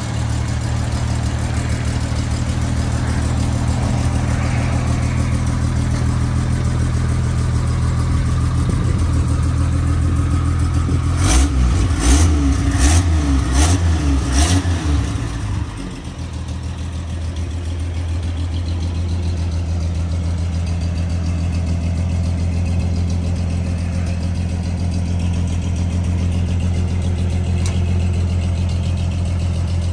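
1949 Chevrolet 3600 pickup's 216.5 inline-six Thriftmaster engine idling steadily. About halfway through it is revved in about five quick sharp blips, then settles back to idle.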